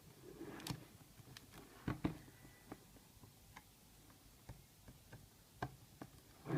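Small, sharp clicks and taps coming at irregular intervals, a louder pair about two seconds in, with a short rustle near the start: hard plastic and metal parts of a Lenovo G500 laptop being handled during a hard-disk swap.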